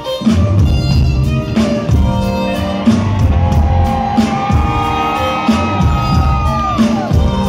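Amplified violin playing a melody live over bass and drums; from about three seconds in it holds long notes that slide down near the end.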